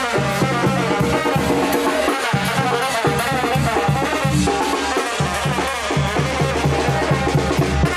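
Music with brass and drums, a steady beat running through it.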